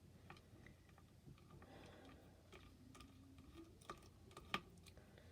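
Faint, scattered small clicks and ticks of a screwdriver working screws out of a graphics card, in near silence.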